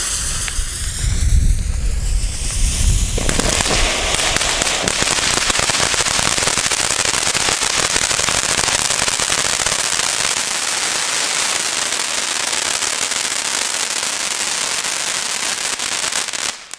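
Two Diamond Fujiyama volcano fountains burning: a hiss over a low rumble for the first three seconds, then a loud, dense crackle that runs on evenly and cuts off suddenly near the end with a few last pops.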